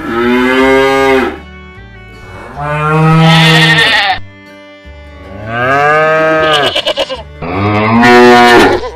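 Cows mooing, a dubbed-in sound effect: four long moos one after another, each about a second and a half.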